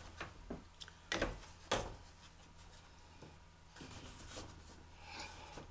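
Rear grille of a kerosene forced-air heater being set onto the housing: a handful of light knocks and clicks in the first two seconds, then faint rubbing and scraping as it is shifted into position.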